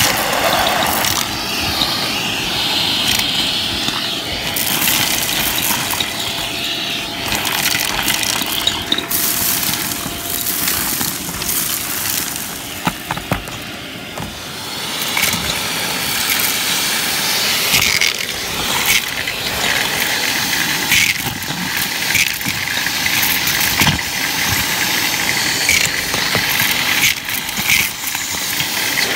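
Shark vacuum running while its crevice tool sucks up small hard debris, which rattles and clicks irregularly as it is pulled into the tool.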